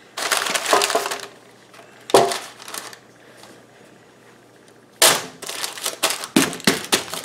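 Parchment paper crinkling and crackling in bursts as it is handled and pressed into a loaf pan around the dough. There is a short burst at the start, a sharper one with a thump about two seconds in, and a run of crackles over the last two seconds.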